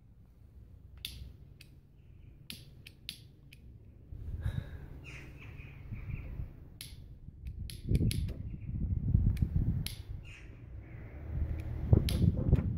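Pocket lighter clicked again and again to relight a tobacco pipe: a series of sharp clicks. Wind buffets the microphone with a low rumble that grows from about four seconds in and gusts loudest near the middle and the end.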